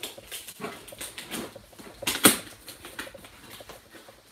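Large cardboard box being shifted and handled close to the microphone: irregular scrapes, rustles and knocks of cardboard and sleeve, with one louder sharp knock about two seconds in.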